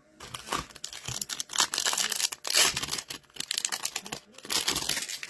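Foil wrapper of a 2023-24 Extended Series hockey card pack being torn open and crinkled by hand: a run of crackling tears, loudest around the middle and again near the end.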